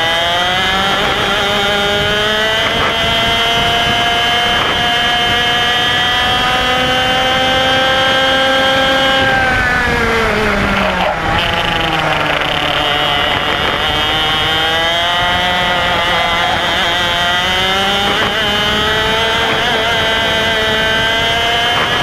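IAME X30 125cc two-stroke kart engine at racing speed, heard onboard. Its revs climb steadily for about nine seconds, fall sharply as the driver lifts for a corner, then climb again, with a shorter dip near the end.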